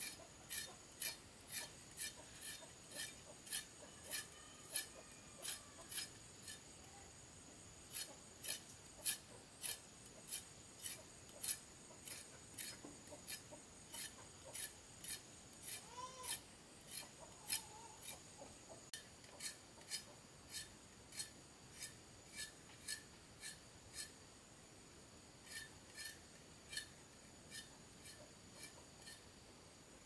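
Hand tool rasping against material in steady strokes, about two a second, with short pauses about six seconds in and again near twenty-four seconds. A thin steady high whine runs underneath.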